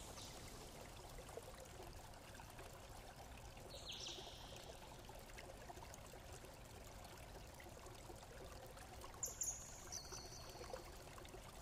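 Near silence: faint steady room hiss, with a few brief faint handling sounds from the multimeter's test probes and alligator clips being connected, one about four seconds in and a couple more near the end.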